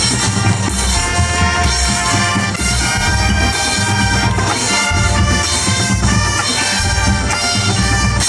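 High school marching band playing: brass and woodwinds holding full chords that change every second or so, over low drum and bass hits.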